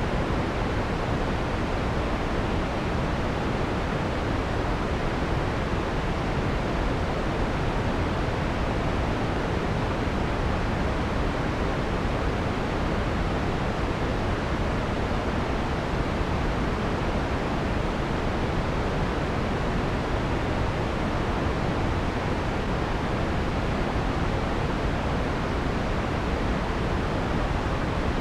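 Steady synthesized white noise, filtered so the harsh high end is rolled off, leaving an even, soft hiss that does not change.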